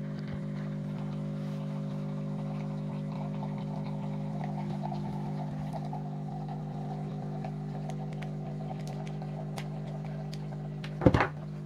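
Siemens EQ.5 coffee machine's replacement vibratory water pump running with a steady hum while the machine dispenses into a glass. A short clatter comes about eleven seconds in.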